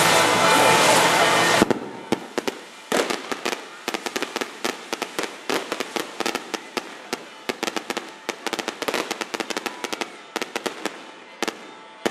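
Fireworks going off in a rapid string of sharp cracks and pops, several a second, after a loud steady din cuts off abruptly about a second and a half in.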